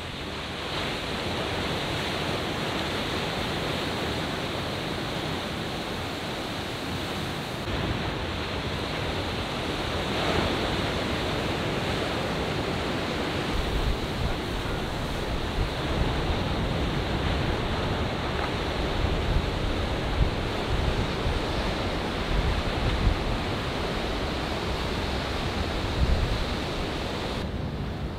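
Steady wash of breaking ocean surf, with wind buffeting the microphone in low gusts from about halfway on.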